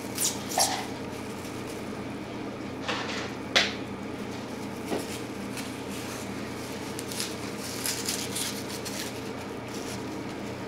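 Eating utensil tapping and scraping against a food container. There are a few sharp clicks, the loudest about three and a half seconds in, and a cluster of light crackling clicks around eight seconds, over a steady background hum.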